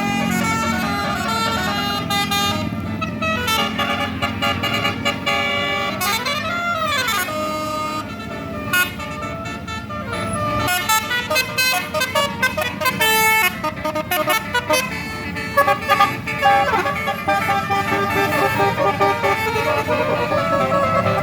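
Tour buses' telolet basuri multi-tone horns playing quick melodic sequences of notes. About six seconds in, one horn glides up and back down like a siren.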